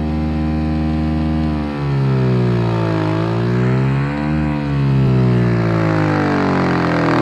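An unmounted Audio Legion Javelin 12 subwoofer playing a deep bass line, rich in overtones, whose pitch slides down, up and down again over a few seconds.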